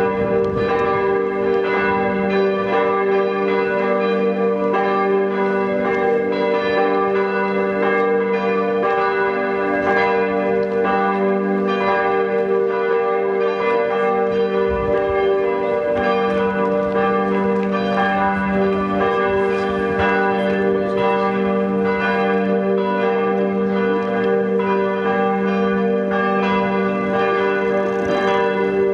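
Church bells of St. Lambertus ringing a full peal, several bells sounding together continuously and very loud.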